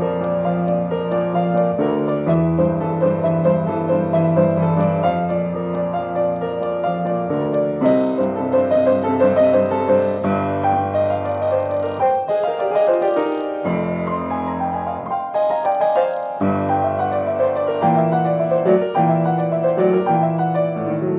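Grand piano playing a solo piece of many quick, busy notes over a moving bass, ending on a held chord near the end.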